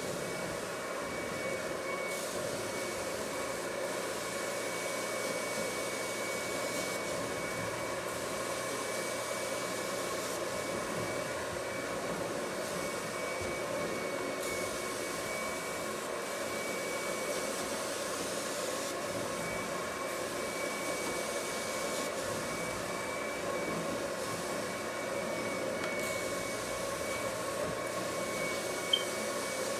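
Carpet extraction machine's vacuum running steadily through the cleaning wand as it is drawn over the carpet: a constant rushing whine with a high steady tone. One sharp click near the end.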